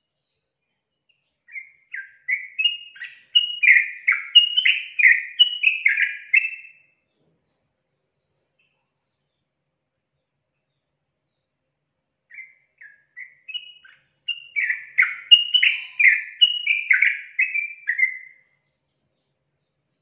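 Caged yellow-vented bulbul (trucukan) singing two song phrases about five seconds apart. Each phrase opens with a few separate short notes, then runs into a quick, bubbling string of warbled notes lasting several seconds.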